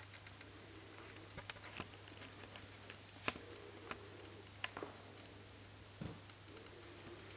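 Small scattered clicks and three sharper ticks from a lop-eared rabbit moving its mouth and feet on a tiled floor, over a steady low hum.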